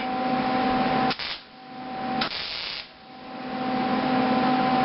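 MIG welder arc hissing and crackling during short tack welds on steel. It cuts out sharply twice as the trigger is let go, with a brief burst of welding between, then starts again.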